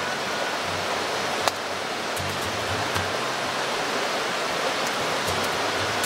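Background music over a steady rushing hiss of outdoor ambience, with a few sharp clicks, the clearest about a second and a half in.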